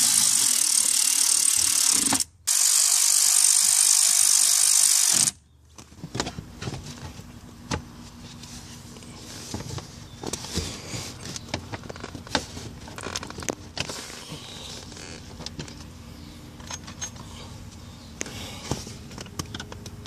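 Cordless ratchet running in two spells, about two seconds and then about three seconds with a brief break, as a high whir, driving the lower dash panel's two screws back in. After that come light clicks and rattles of plastic trim being handled.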